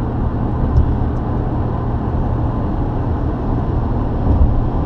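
Steady road and engine noise heard inside a moving car's cabin while cruising on an expressway: an even, mostly low rumble.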